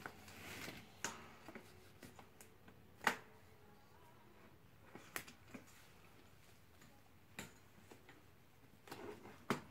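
Faint, sparse clicks and taps, about half a dozen with quiet between them, the sharpest about three seconds in: the steel springs and frame of a mini trampoline being handled by hand.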